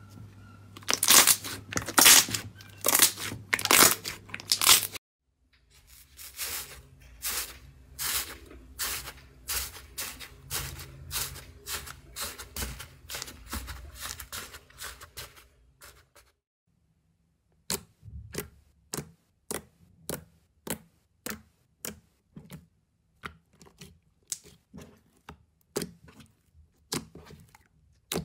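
Slime squished by hand, in three cuts. Glossy pink slime gives loud wet pops and clicks for the first five seconds; a crumbly green sandy slime pressed with the fingers crackles densely; then, after a brief gap, purple metallic slime kneaded with both hands squelches in sharp pops about twice a second.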